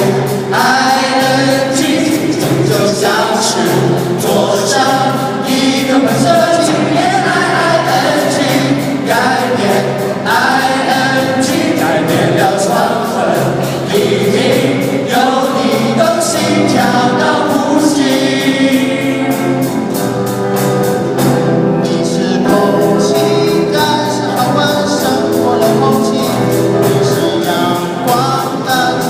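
Music: a group of voices singing together over a steady beat.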